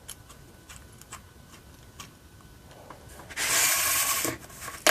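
Small metal tools ticking and clicking against a Schlage Primus lock cylinder as its back screw plate is worked loose with a special tool, then a metal scrape lasting about a second, about three and a half seconds in, and a sharp click near the end.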